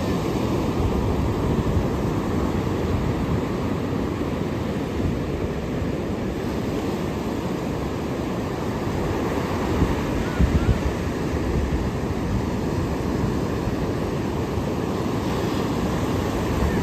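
Ocean surf washing steadily on the shore, with wind buffeting the microphone, most strongly about ten seconds in.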